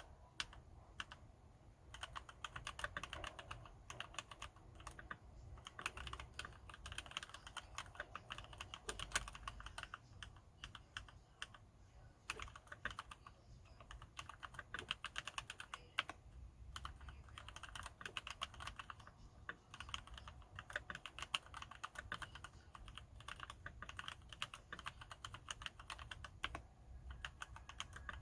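Fast typing on a mechanical keyboard with linear Gateron Yellow switches lubed with Super Lube spray, in a Ninja 87 Arc XD board. The keystrokes come in quick runs with short pauses between them.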